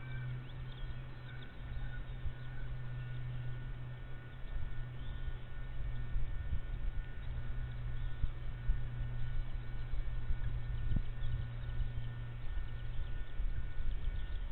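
Steady low electrical hum that cuts off a couple of seconds before the end, over low rumbling and knocking that grows louder, with a few faint short chirps near the start.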